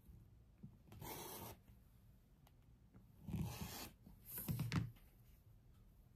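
Rotary cutter blade rolling through a sewn half-square triangle of quilting fabric along an acrylic ruler on a cutting mat, trimming it to size. There are three short scraping strokes: a lighter one about a second in, then two louder ones around three and four and a half seconds.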